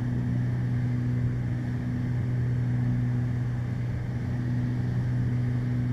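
Steady drone of a Beechcraft Baron's twin piston engines and propellers heard from inside the cockpit on final approach, with a constant low hum and a rushing hiss above it.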